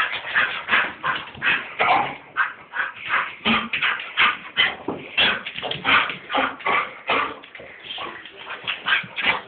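An excited dog whining and yipping in a quick run of short, high-pitched cries, a few a second without a break, in its greeting of an owner who has come home.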